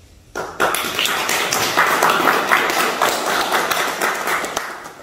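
A small group of people applauding, the separate hand claps distinct. It starts about a third of a second in and tapers off near the end.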